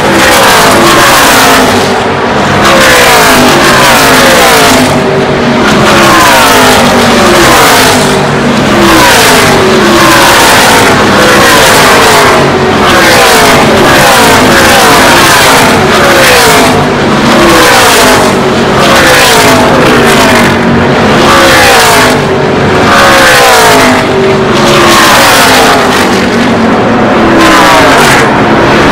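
NASCAR Truck Series race trucks' V8 engines at full throttle, very loud, passing in a continuous stream, each one's pitch falling as it goes by.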